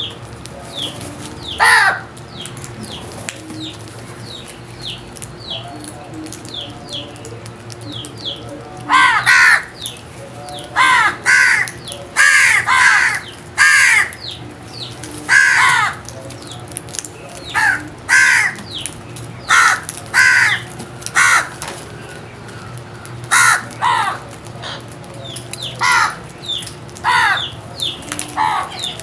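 Crows cawing: one harsh caw about two seconds in, then a long run of loud, repeated caws from about nine seconds on. Faint short chirps from small birds sound in the background.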